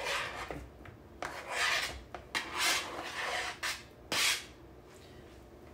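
Knife blade scraping diced avocado off a plastic cutting board into a plastic bowl: a handful of short scrapes over about four seconds.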